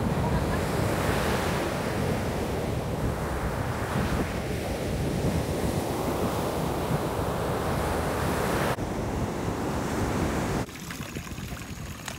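Ocean surf breaking and washing up a sandy beach, swelling and easing with each wave, with wind buffeting the microphone. Near the end it cuts off to a much quieter scene.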